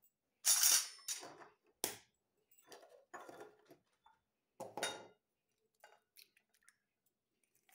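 Clinks and knocks of a ceramic bowl of raw eggs being set down and the eggs handled, then an egg tapped against the bowl to crack it a little under five seconds in, followed by faint shell sounds as it is pulled apart.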